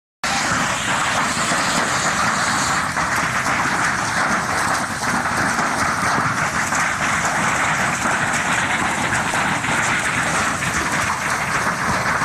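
Sound effect of a train running on rails: a steady, loud rushing rumble that starts abruptly.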